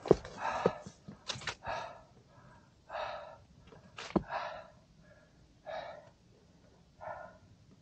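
A hiker breathing hard and heavily, a loud breath about every second or so, winded from a steep uphill climb. Sharp clicks of footsteps on the trail are mixed in, most clearly near the start and once about four seconds in.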